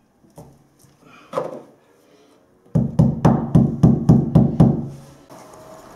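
Hammer tapping a wall plug into a drilled hole in the wall: a single knock, then a quick run of about nine strikes, roughly four a second.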